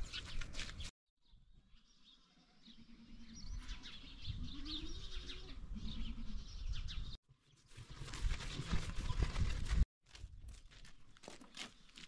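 Outdoor rural sounds: birds chirping and an animal calling, broken off abruptly twice.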